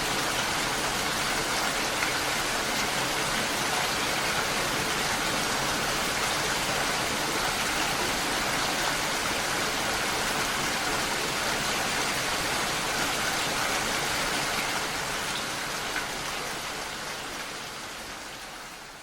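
Steady rain falling, an even hiss of countless drops pattering on a surface; it fades out over the last few seconds.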